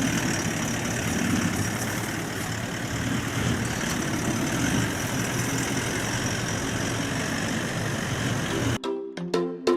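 Vehicle driving: steady engine and road noise. Near the end it cuts off abruptly into music with struck, marimba-like percussive notes.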